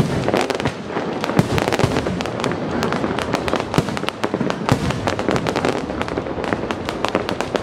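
Fireworks display: a dense, continuous stream of sharp pops and crackles from bursting shells and sparking fountains, with a stronger bang about a second and a half in.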